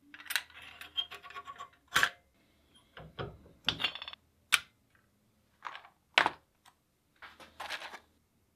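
Small metal parts of an antique brass spring fish scale being worked by hand: bursts of scratchy scraping and rubbing, with three sharp metallic clicks among them.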